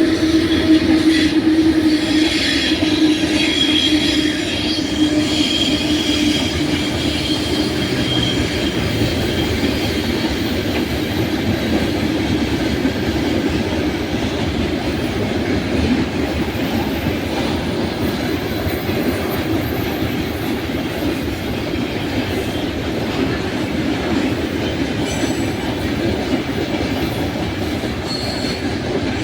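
Freight train rolling past: a steady, loud rumble of wagon wheels on the rails, with a thin high squeal of wheels on the rail in the first few seconds.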